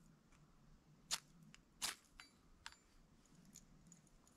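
A few small sharp clicks from handling a magnesium fire starter and its steel striker, two louder ones less than a second apart followed by a few fainter ticks.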